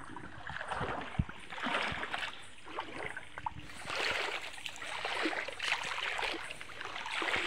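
River water splashing and sloshing in swells every second or two, with small knocks and drips mixed in: someone wading through a river.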